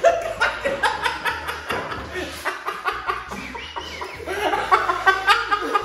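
Several people laughing hard together.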